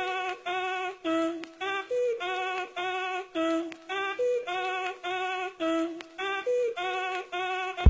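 Outro music: a repetitive sung melody of short notes hopping back and forth between a lower and a higher pitch, with no beat under it.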